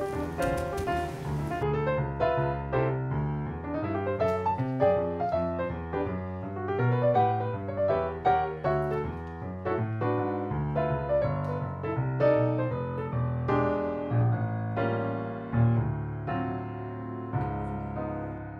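Background piano music, a gentle melody of struck notes over a steady bass line.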